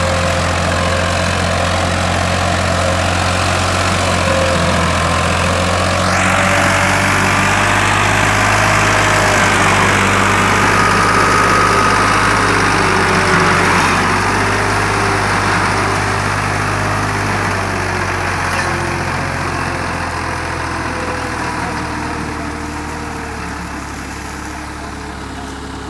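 Ford 3610 tractor's three-cylinder diesel engine labouring steadily under a heavy load as it drags a high-piled sugarcane trolley through a field. It grows louder and harsher about a quarter of the way in, then fades gradually as the tractor draws away near the end.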